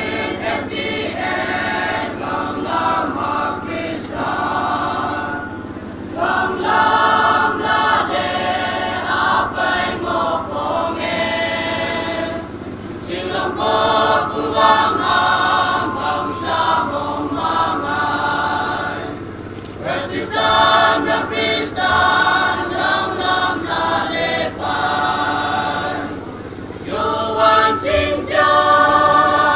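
Church choir of women and men singing a hymn together from song sheets, in long phrases with brief pauses for breath between them.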